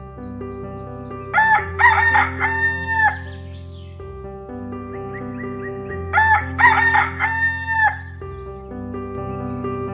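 A rooster crowing twice, about five seconds apart, over background music with sustained chords that change every few seconds.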